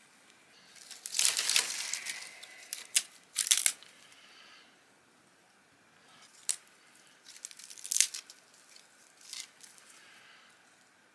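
Dry grass tinder and small dry twigs crackling and rustling in short, irregular bursts as kindling is laid onto a freshly lit tinder bundle. The loudest bursts come about a second in and around three and a half seconds in.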